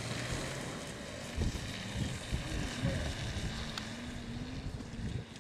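Wind buffeting an outdoor microphone in uneven gusts, with a steady hiss of wind and a faint wavering hum underneath.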